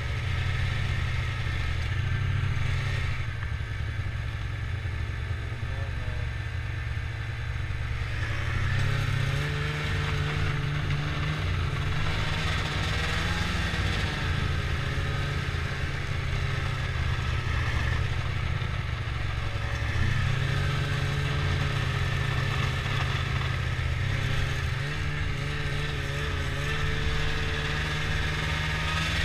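Ski-Doo snowmobile engine running under way. Its pitch steps up about a third of the way in, drops back about two-thirds in and rises again near the end as the throttle changes.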